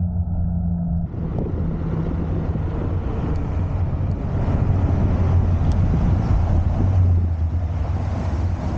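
Wind rushing over the microphone with steady road rumble while riding an electric scooter; about a second in the hiss turns brighter and fuller.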